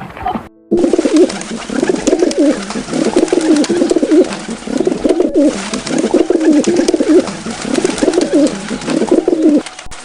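Birds calling with low, repeated warbling calls that start just under a second in and stop near the end.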